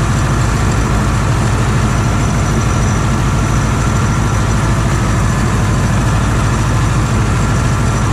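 Tractor engine running steadily with an even low-pitched drone that holds the same pitch throughout.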